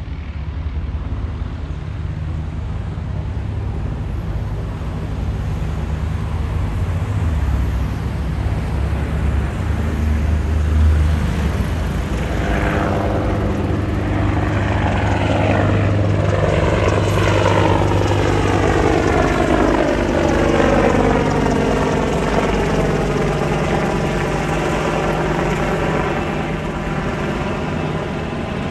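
AH-64E Apache helicopter's rotors and twin turboshaft engines as it flies past overhead: a steady heavy rumble that grows louder toward the middle, then a sweep of tones gliding down in pitch through the second half as it passes and draws away.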